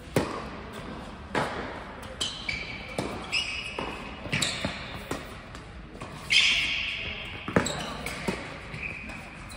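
Tennis doubles rally on an indoor hard court: a serve struck at the very start, then racket hits and ball bounces about once a second, echoing in the hall. High squeaks from shoes on the court come in between, the loudest about six seconds in.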